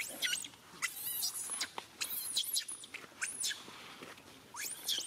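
A young monkey squealing and screaming over and over, high-pitched arching cries about twice a second.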